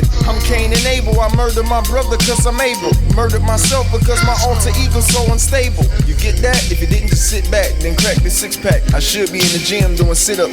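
Hip-hop music with rapped vocals over a heavy bass beat.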